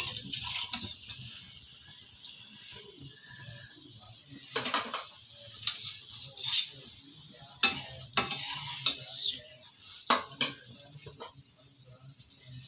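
Steel tongs clinking against a steel frying pan and colander as fried doughnuts are lifted out of hot oil: a handful of sharp, irregular clinks over a faint, steady sizzle of the oil.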